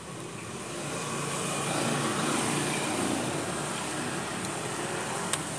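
A motor vehicle passing in the background, its wash of engine and road noise swelling over the first two seconds and then holding. There are a few light metallic clicks from small parts being handled near the end.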